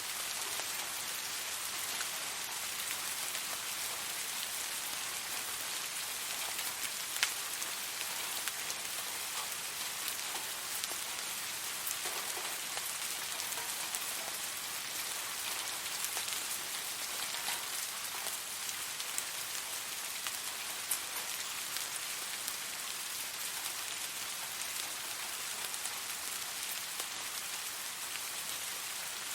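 Steady rain falling, an even hiss with individual drops ticking sharply here and there, the clearest about seven seconds in and again about twenty seconds in.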